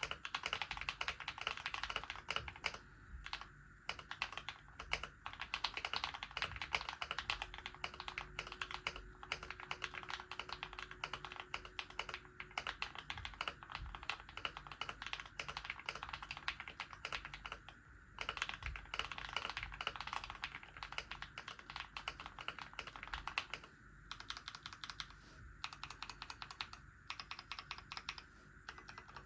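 Continuous fast typing on a GMMK White Ice Edition TKL mechanical keyboard with lubed and filmed KTT Mallo linear switches on 30 g springs, tape-modded and foam-filled, with AKKO keycaps: rapid streams of keystroke clacks broken by a few short pauses.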